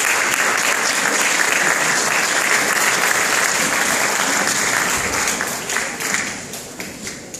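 Audience applauding in an auditorium, a steady clapping that dies down near the end.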